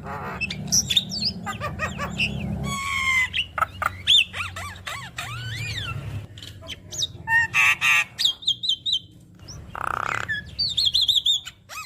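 Javan myna (jalak kebo) singing a varied, chattering song of harsh squawks, whistles that rise and fall, and fast trills, full of phrases mimicked from other birds.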